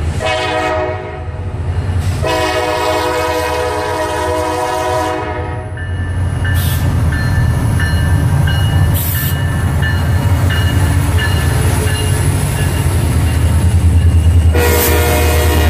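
A train horn sounds a chord in several blasts: a short one at the start, a long one from about two to six seconds in, and another near the end. Under the horn a steady, heavy low rumble runs throughout as a train rolls past.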